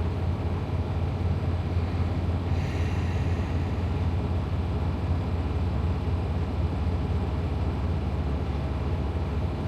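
Semi-truck diesel engine idling with a steady low rumble.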